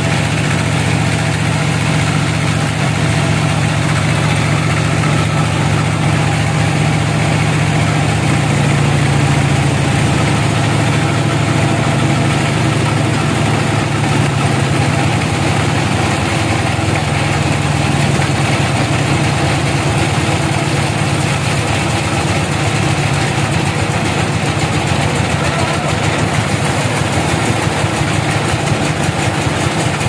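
Band sawmill running, a loud steady machine drone that carries on throughout and shifts slightly in pitch a few times as a log is fed past the blade.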